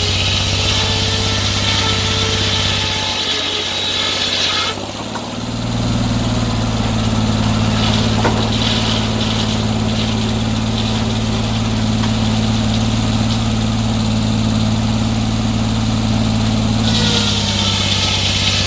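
Sawmill engine running steadily. A high, hissing whine rides over it for the first few seconds, stops about five seconds in, and returns near the end.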